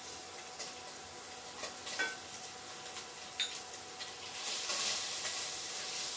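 Soya chunks and sliced onion sizzling in hot oil in a frying pan as they are stirred, with a couple of sharp clinks of the spoon on the pan. The sizzle grows louder about four seconds in.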